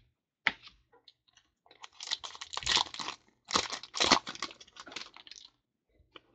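Foil wrapper of a 2014 Panini Certified football card pack crinkling as it is opened and crumpled by hand, in a run of rustles from about two seconds in that lasts some three seconds, after a single click.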